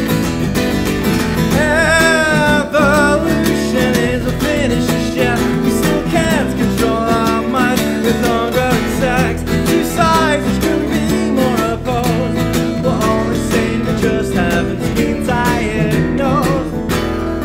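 Solo acoustic guitar played fingerstyle in a blues style: an instrumental passage of plucked and strummed chords with melody notes.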